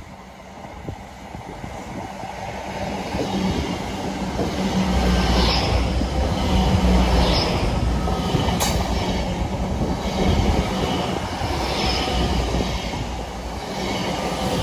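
A train approaching and running past, growing louder over the first five seconds into a steady low rumble with rail noise. A high swish recurs every second or two, with one sharp click about nine seconds in.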